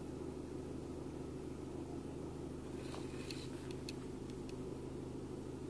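Car engine idling steadily at about 750 rpm, heard from inside the cabin, its idle settled down as it warms after a cold start at −12 °C. A few faint clicks about three seconds in.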